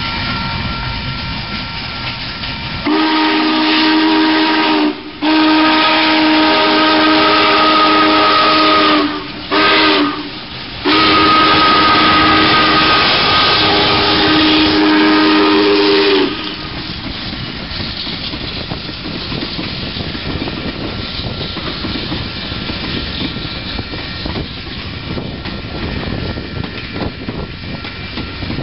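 Union Pacific Challenger No. 3985 steam locomotive blowing its chime whistle, a chord of several notes, in the grade-crossing signal: long, long, short, long. The whistle stops about halfway through, and the passing train goes on with a steady rumble.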